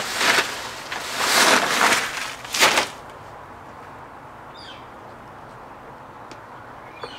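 Large malt sack rustling and crinkling in a few loud bursts as the last of the grain is shaken out of it, stopping about three seconds in. A bird chirps a few short falling notes about halfway through.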